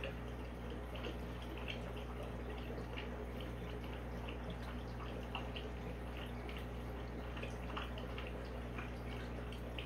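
Aquarium filter running: water trickling and dripping in irregular small ticks over a steady low hum.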